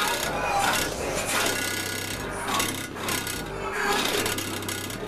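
A rasping, rubbing noise over low, steady bass notes that change in steps.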